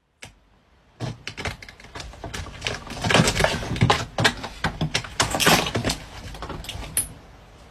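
A rapid, irregular run of clicks and knocks, starting about a second in, thickest in the middle and thinning out toward the end.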